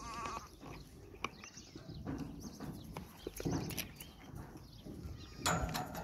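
Goats bleating: a quavering bleat right at the start and another near the end, with scattered knocks in between.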